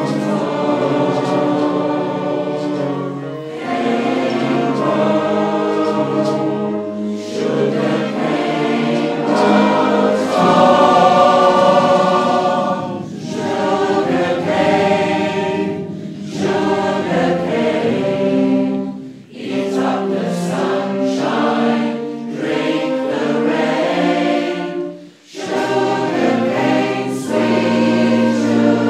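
A large amateur community choir of about a hundred voices singing a contemporary choral piece in sustained chords, with two brief pauses between phrases in the second half. It was recorded on an iPhone, so the sound is not clear.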